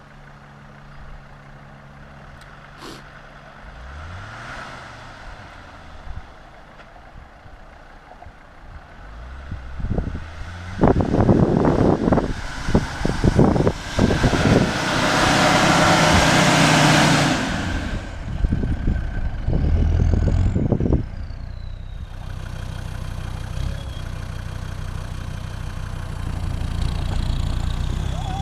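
An off-road 4x4's engine running and revving under load, quiet at first with one rising rev, then loud and uneven for several seconds with a rushing noise about halfway through, settling into a steady drone near the end.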